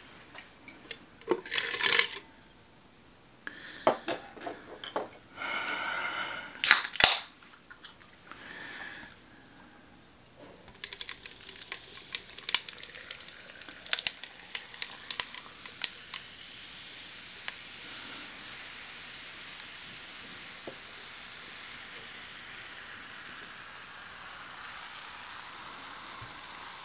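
Scattered clicks, knocks and rustles of objects handled on a tabletop close to the microphone, with a quick run of sharp clicks around the middle. For the last ten seconds or so, only a steady hiss of room tone.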